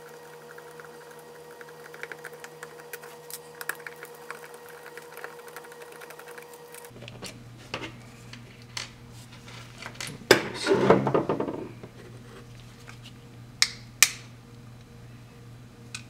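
Small screwdriver and plastic turn-signal switch housing being worked by hand: light ticks and scrapes as small screws are backed out, a short burst of rattling about ten seconds in, then two sharp clicks.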